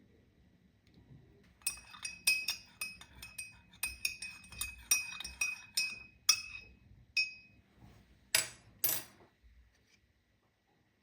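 A spoon clinking against a drinking glass, a quick run of ringing clinks about three a second for several seconds, then two short, noisier scraping strokes near the end.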